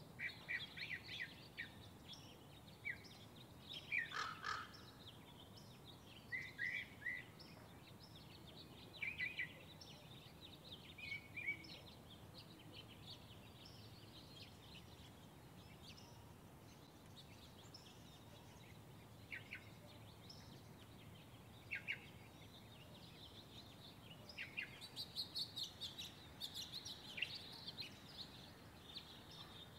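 Birds chirping in short, scattered calls over faint outdoor background noise, with a busier run of chirps near the end.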